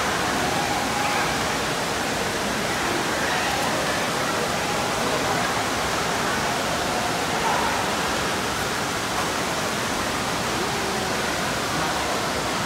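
Indoor water park din: a steady rush of running and splashing water with faint, distant voices mixed in.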